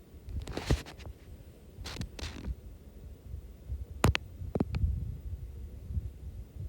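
Scattered clicks and taps, with a few short soft rustles and a low rumble underneath.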